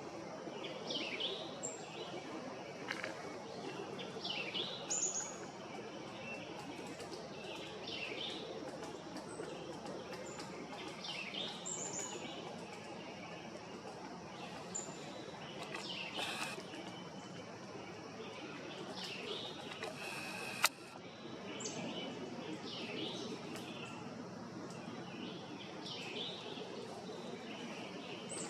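Birds calling outdoors: short chirping calls repeat every few seconds, with thin high whistled notes above them, over a steady background hiss. A single sharp click about twenty seconds in.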